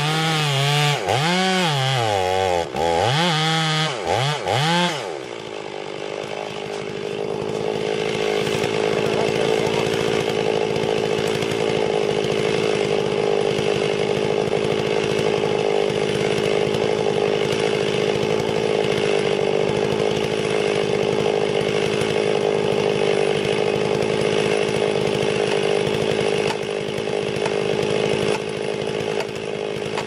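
Chainsaw engine revving up and down for the first five seconds or so, then running at a steady pitch with an even drone.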